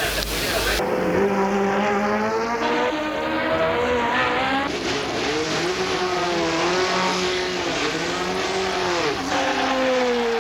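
1970s Formula 1 race car engine running at high revs, its pitch climbing and dropping repeatedly as it accelerates and changes gear. The sound changes abruptly about a second in and again near the end.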